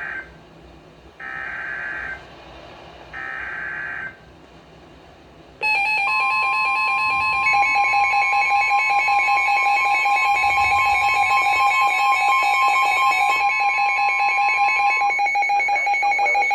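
NOAA Weather Radio Emergency Alert System signal: the end of one burst and two more one-second bursts of buzzy, screeching SAME header data tones, a second apart. After a short gap comes a loud, steady warning alarm tone, the start of a severe thunderstorm warning. One of its pitches stops about three-quarters of the way through while a lower tone keeps sounding.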